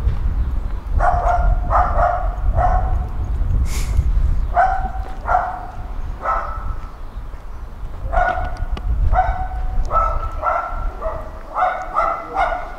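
A dog barking repeatedly in short runs of barks, more rapidly near the end, over a steady low rumble.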